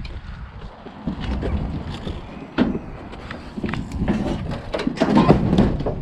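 Wind buffeting the microphone with a low rumble, overlaid by a run of knocks and clunks, the loudest about two and a half seconds in and again around five seconds.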